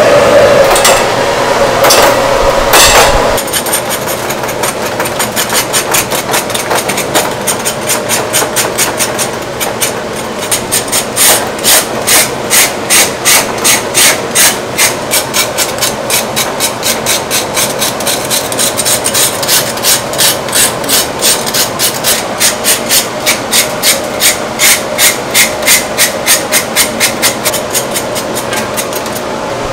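A blade rasping over the charred crackling skin of a roast pork belly, scraping off the burnt layer in quick, even strokes of about three a second. A few sharp knocks come in the first three seconds, as the roast is lifted from the drum oven.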